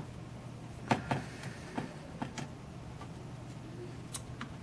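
A screwdriver backing out a small screw from a Sony Mavica camera's case: a few scattered small clicks and ticks of metal on metal, over a faint steady hum.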